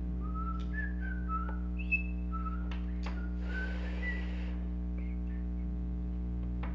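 A person softly whistling a tune of short notes for the first four seconds or so, over a steady electrical hum, with a small click about two seconds in.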